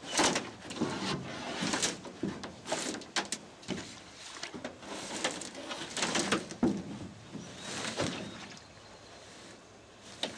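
Irregular knocks, scrapes and hollow clunks of an aluminum canoe and its paddle bumping against a wooden dock as the paddler settles in and pushes off, with the loudest knock right at the start.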